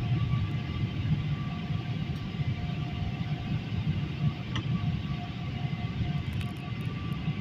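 Steady cabin noise of a jet airliner in flight, heard from inside the cabin: a low, even rumble of engines and rushing air with faint steady hums over it.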